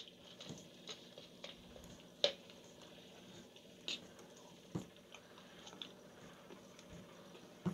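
Spoon stirring thick rava idli batter in a steel bowl as curd and salt are mixed in: faint wet squelching, with a few light clicks at about two, four and five seconds in.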